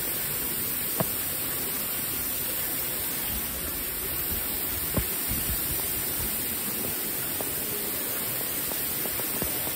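A steady, even hiss, strongest in the high range, with a light knock about a second in and another about five seconds in.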